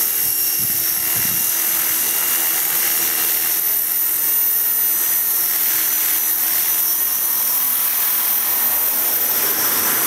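KDS 450 SV electric RC helicopter in flight: a steady, high-pitched whine from its electric motor and spinning rotor, holding pitch throughout.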